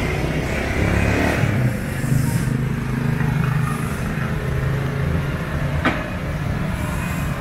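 Street traffic: a vehicle engine running with a steady low hum, and a single sharp click about six seconds in.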